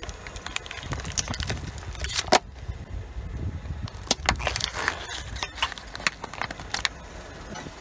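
Slime-filled thin plastic cups cracking and crinkling under a slowly rolling car tyre: a run of sharp snaps and crackles over the low rumble of the car, the loudest snap about two and a half seconds in.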